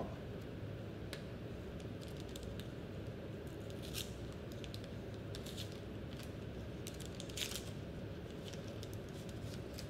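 Sterile swab's paper peel pouch being handled and torn open: scattered soft crinkles and small tearing clicks, the loudest about 4 s and 7.5 s in, over a low steady room hum.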